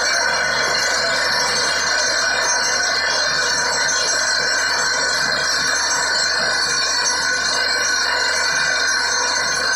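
Steady rush of borewell water, with high ringing tones held over it and no change in level.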